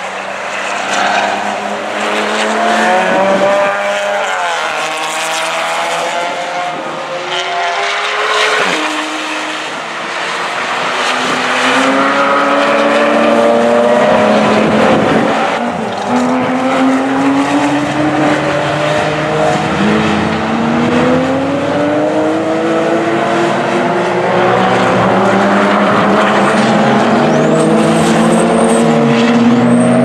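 Several track-day cars, mostly Porsche sports cars, driving hard past one after another, their engine notes overlapping. The revs fall sharply about eight seconds in, then climb repeatedly through gear changes under acceleration for the rest of the time.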